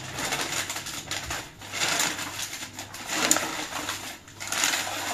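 Paper rustling and crinkling in about four bursts as a glass bowl is wrapped in it, with a light tick about three seconds in.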